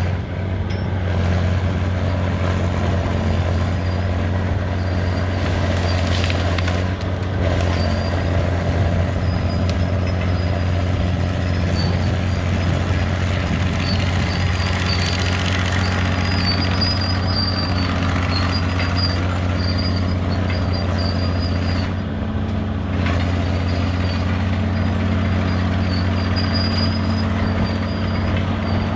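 Fiat-Allis 14B crawler dozer's diesel engine running steadily under work, with a high squeal coming and going over it.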